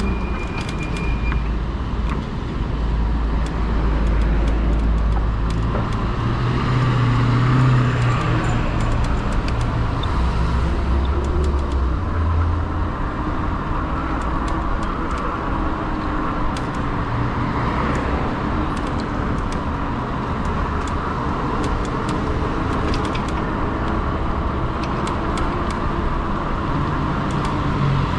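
Road traffic heard from a moving fat-tire e-bike, with a steady low wind rumble on the microphone that swells for several seconds early in the stretch.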